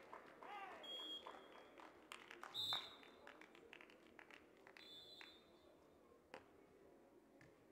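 Faint sound from around a beach volleyball court: scattered hand claps and clicks, with three short, high, steady whistle-like tones in the first two-thirds.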